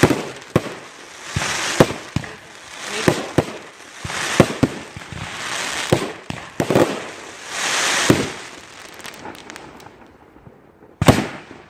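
Consumer fireworks going off in rapid succession: sharp bangs mixed with hissing, crackling swells every second or so. They thin out to a lull near the end, then one more loud bang.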